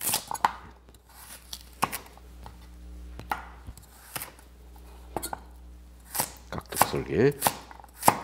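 Cleaver chopping a carrot on an end-grain wooden cutting board while dicing it into cubes. The knife strikes come singly and irregularly at first, then quicker and closer together from about six seconds in.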